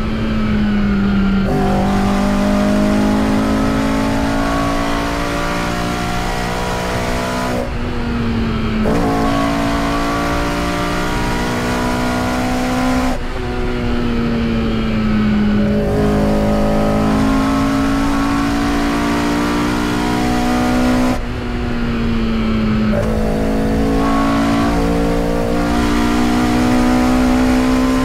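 Toyota 4A-GE 20-valve blacktop inline-four with individual throttle bodies, revving hard near 7,000–8,000 rpm under load. The pitch climbs steadily, then drops back several times as the throttle lifts or a gear changes.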